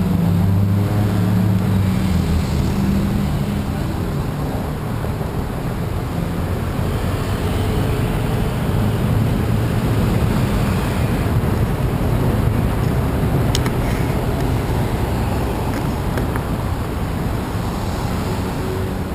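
City street traffic: cars, vans and motorbikes passing close by in a steady rumble of engines and tyres. A vehicle engine runs close by for the first few seconds before fading into the general traffic noise.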